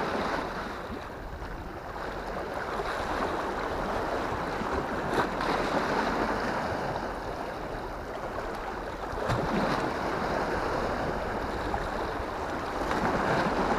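Sea waves lapping and washing against the rocks below a seawall, a steady wash of water with some wind on the microphone.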